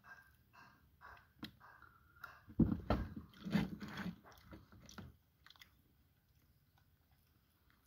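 A person biting and chewing ripe mulberries in a run of short, close sounds, loudest from about two and a half to five seconds in.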